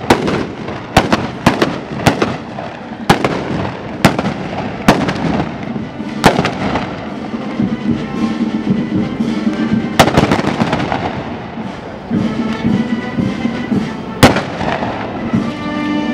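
A ragged running volley of black-powder blunderbuss shots: loud sharp bangs fired one after another at irregular spacing, sometimes two or three in quick succession, each with an echoing tail. The shots thin out in the second half.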